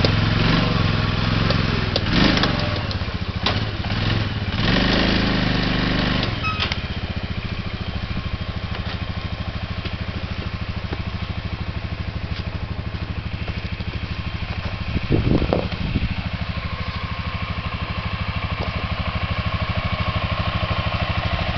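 2000 Arctic Cat 500 4x4 automatic ATV engine revving, its pitch rising and falling for about the first six seconds, then running steadily at a lower, even speed. A brief louder burst comes about fifteen seconds in.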